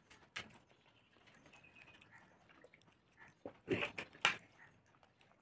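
Quiet eating by hand: fingers mixing rice on plastic plates, with chewing and small mouth smacks, and a few sharper clicks about four seconds in.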